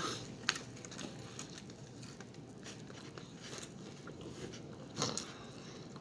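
Close-up eating sounds from a Chipotle burrito: faint chewing and small wet clicks, with a sharp click about half a second in and a louder bite or crunch about five seconds in.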